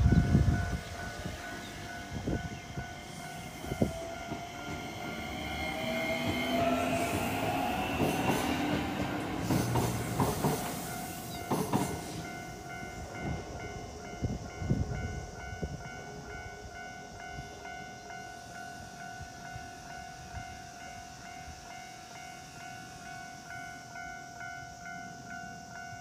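Japanese level-crossing warning bell ringing steadily throughout with its electronic kan-kan tone. From a few seconds in to about twelve seconds an electric train passes: a motor whine rises in pitch and the wheels knock over the rail joints.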